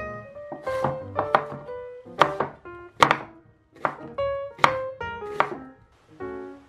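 Chef's knife slicing through a halved onion and striking a wooden cutting board, about eight sharp cuts at uneven intervals that stop after about five seconds, over background piano music.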